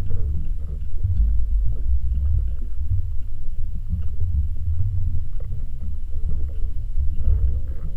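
Underwater rumble of water rushing past an underwater camera's housing as it moves with the lures, with faint wavering tones above it.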